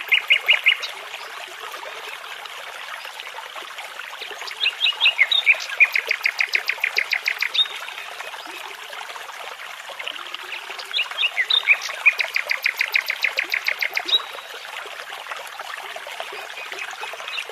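A songbird singing over the steady rush of a babbling brook: a brief burst of notes at the start, then two phrases, each of a few opening notes followed by about three seconds of rapidly repeated notes.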